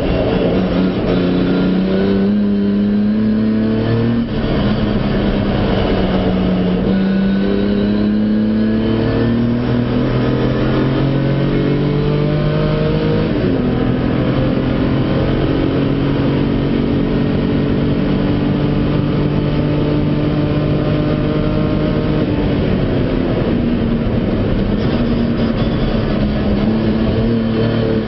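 Jaguar E-type race car's straight-six engine under hard acceleration, heard from inside the cockpit: revs climb and drop sharply at gear changes about four and thirteen seconds in, hold steady and high for several seconds, then fall away about twenty-two seconds in before climbing again.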